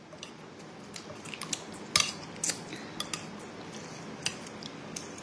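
Metal spoon clinking against a bowl of soup as it is scooped: about ten sharp, irregular clinks, the loudest about two seconds in.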